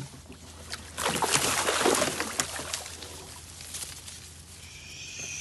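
Loud splashing in reedy lake water about a second in, lasting a second and a half: a speared carp thrashing at the surface.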